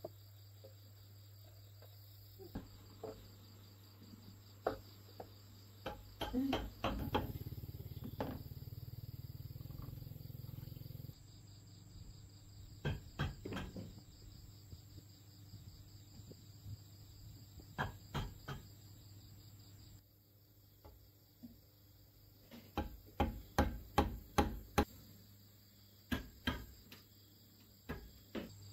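Crickets chirring steadily over a low hum, with scattered sharp knocks and clicks and a quick run of them near the end.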